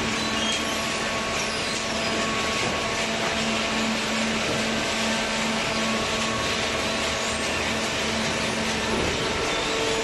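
Hydraulic cardboard baler and its feed conveyor running, making a steady mechanical whirr with a low hum. The hum drops away about nine seconds in, and a higher steady tone comes in just after.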